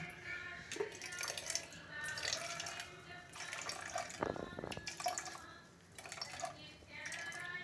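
Juice of ground amla, ginger and salt dripping and trickling through a strainer as the paste is strained, with small clicks of the strainer and vessel.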